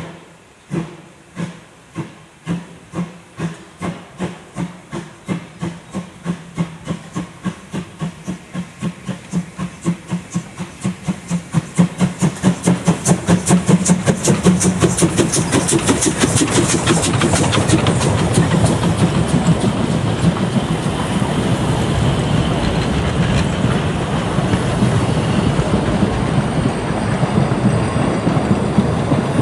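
Saxon VII K narrow-gauge steam locomotive 99 761 working hard towards and past the listener: its exhaust beats start slow and quicken from about one and a half to about four a second as it picks up speed, getting louder until it goes by around the middle. After that the carriages roll past with a steady rumble and quick clicking of wheels over rail joints.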